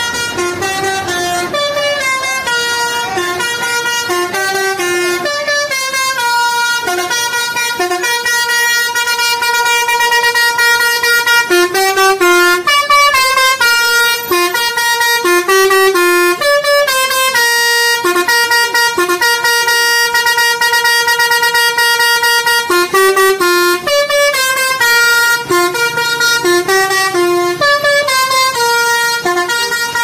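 Tour bus 'basuri' telolet horn playing a loud tune: a quick run of changing notes over a steady held tone.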